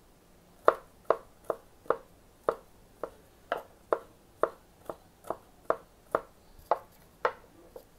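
Chef's knife mincing fresh herb leaves and garlic, the blade knocking on a wooden cutting board about fifteen times in a steady rhythm of roughly two chops a second.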